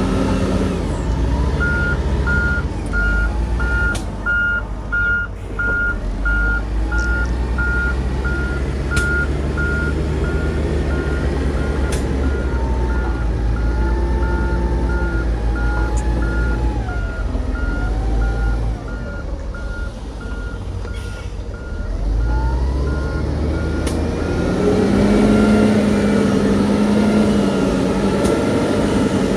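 A heavy diesel construction machine running, its reversing alarm beeping steadily at about two beeps a second. The beeping stops a few seconds before the end, when the engine revs up and runs louder.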